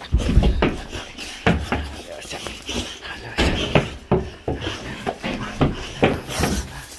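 A string of irregular knocks and bumps, with rumbling handling noise, from a handheld phone jostled by excited boxer dogs jumping against it.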